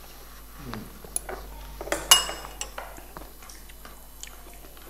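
Metal spoons clinking against dishes as people eat: a few light clicks, then one sharp, ringing clink about two seconds in.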